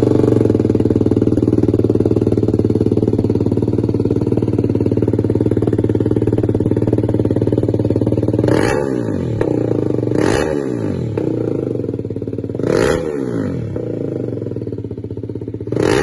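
BMW G310R's single-cylinder engine idling steadily through an SC Project replica slip-on exhaust with bend pipe. In the second half it is revved in about four short throttle blips, each falling back to idle.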